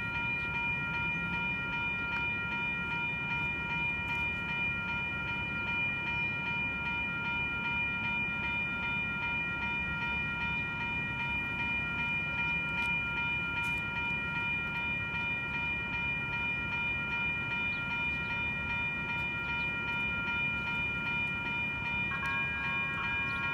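Locomotive multi-chime air horn held in one long, unbroken chord over the low rumble of the train. Near the end a few more notes join in.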